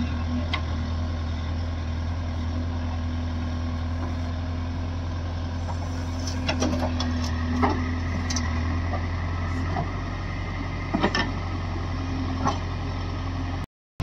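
Heavy diesel engine of the working machinery running steadily, with a few sharp metallic clanks in the middle and a higher whine joining for a few seconds. The sound cuts out briefly near the end.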